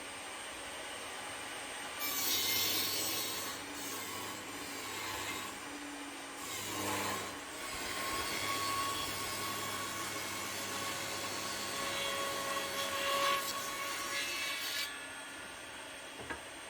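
A saw cutting through old wood, a steady rasping that starts about two seconds in and stops near the end.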